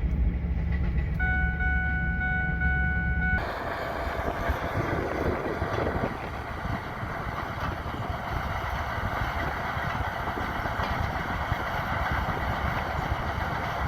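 Caterpillar D8K dozer's diesel engine running steadily under a low drone, with a steady high tone joining about a second in. About three seconds in the sound changes suddenly to a rougher, noisy rush of engine and wind.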